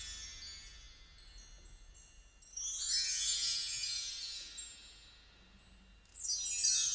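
Bar chimes (a mark tree) swept from high to low, a shimmering cascade of many small ringing tones that dies away slowly. The ringing of an earlier sweep fades at the start, a fresh sweep comes about two and a half seconds in, and another starts near the end.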